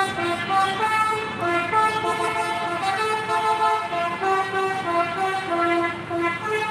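A bus's telolet horn, a multi-tone musical air horn, playing a melody of held notes that step up and down in pitch throughout, over the low running of the vehicle.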